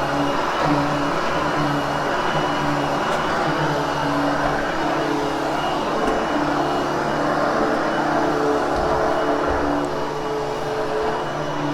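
Bagged vacuum cleaner running steadily over carpet, a constant motor hum under the rush of suction, as the carpet is post-vacuumed after cleaning.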